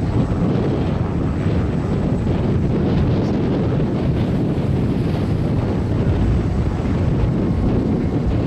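Steady wind rumble on the microphone, with the single Pratt & Whitney PT6A turboprop of a Pilatus PC-12 running beneath it as the plane taxis away.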